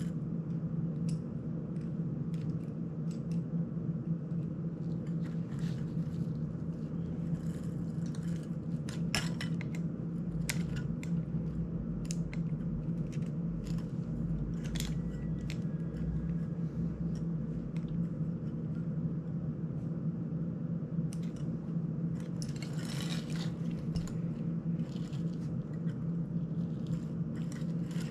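Steady low hum throughout, with scattered small metallic clicks and taps from a screwdriver and small parts being handled while a small FPV drone is worked on at the bench, a few of them in quick clusters.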